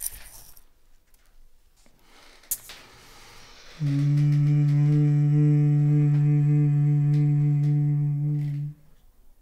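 A sharp knock at the start and a click about two and a half seconds in. Then a man hums a single low, steady note for about five seconds, a chant-like hum for a mock séance, which cuts off abruptly.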